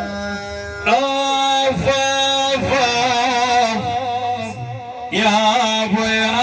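Opening of an Arabic devotional praise song (madih): a long, ornamented melodic line with vibrato, most likely a man's voice singing, entering about a second in over a held note, with a new phrase starting about five seconds in.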